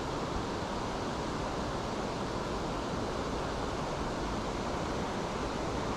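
Steady rushing of river water pouring over a weir, an even, unbroken wash of noise.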